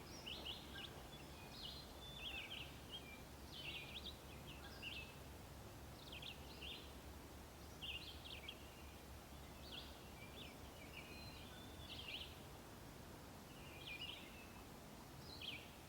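Songbirds singing: short, quick high phrases repeated about once a second, over a faint steady low background hum.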